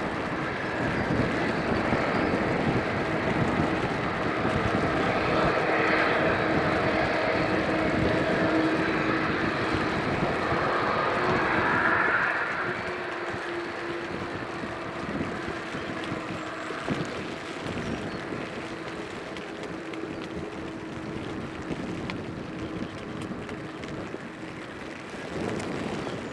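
Jet airliner engines: a steady rushing noise with a held tone underneath. It is loud for the first half, then drops noticeably about halfway through and carries on quieter.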